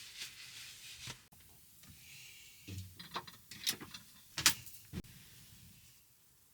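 A few sharp clicks and knocks with some rubbing, like objects being handled, bunched in the middle, the loudest knock about four and a half seconds in.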